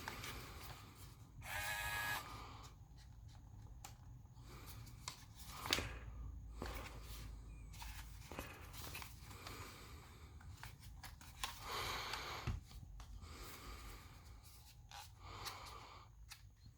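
Faint, scattered rustling and handling noises, typical of a toy and its packaging being handled, with a few light clicks. About two seconds in there is a brief pitched sound.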